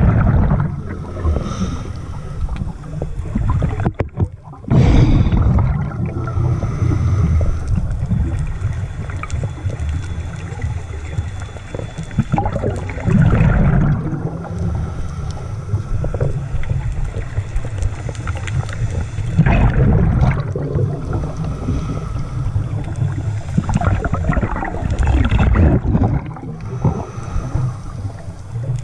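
Scuba diver's breathing heard through an underwater camera housing: exhaled bubbles from the regulator bubbling past in strong surges about every six seconds, over a steady low rush of water.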